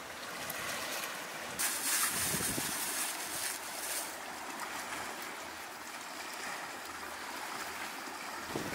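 Sea waves washing, with wind on the microphone. A louder rush of water starts suddenly about a second and a half in and lasts a couple of seconds.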